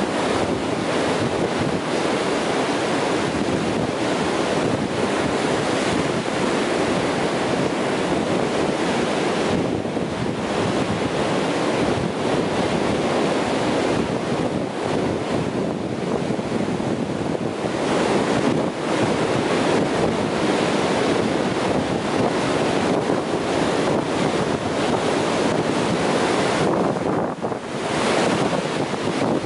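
Ocean surf breaking and washing up the sand at the water's edge: a continuous rush of foaming water that eases briefly a couple of times between waves.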